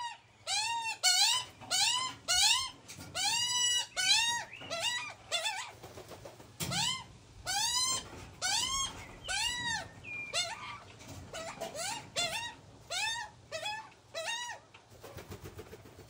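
Juvenile Australian magpie begging calls: a long run of loud, harsh squawks, each rising and falling in pitch, about one or two a second, growing shorter and quicker in the second half as the young bird is fed.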